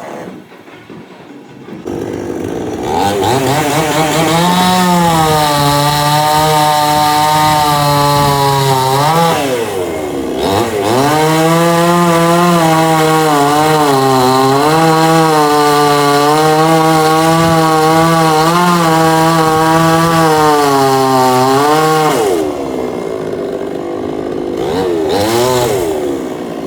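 Chainsaw engine revving up and running hard through a cut, its pitch wavering under load. The note sags about ten seconds in and climbs back, then drops away with about four seconds left and revs up again.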